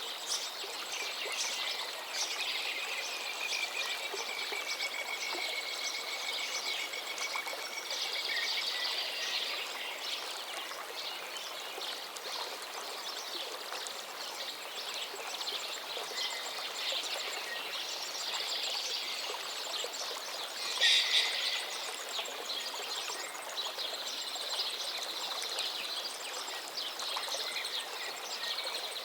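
A river running steadily, with several birds singing and calling over it: a long drawn-out call near the start and one louder burst of song about two-thirds of the way through.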